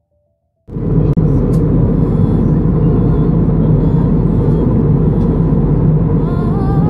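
Airliner cabin noise in cruise: the steady, loud rumble of the jet engines and airflow heard from a window seat. It cuts in suddenly about a second in.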